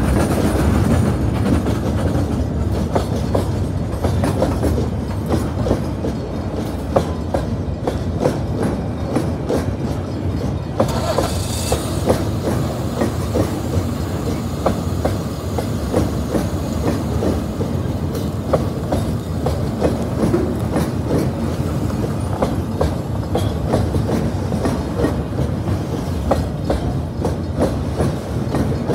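Freight train of log-loaded bulkhead flatcars rolling past at steady speed: a continuous low rumble with wheels clicking over the rail joints. A brief high hiss comes about eleven seconds in.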